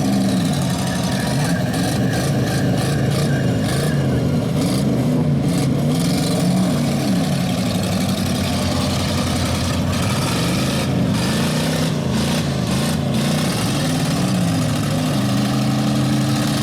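Several stock car engines revving up and down together in a demolition derby, with scattered sharp knocks from the cars.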